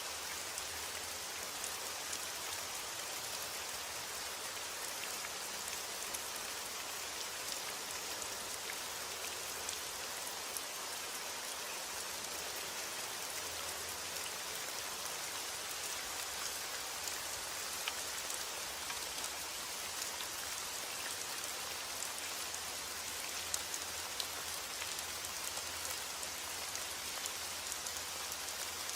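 Steady rain falling, an even hiss with scattered drops ticking on a surface.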